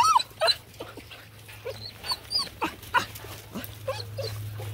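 Black and tan coonhound puppies crying in short high-pitched calls, a loud one right at the start and then several a second, thinning out and fading toward the end.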